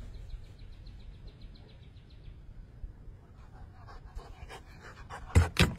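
A dog panting over a low rumble, with a faint fast ticking for the first two seconds. A few loud knocks follow near the end.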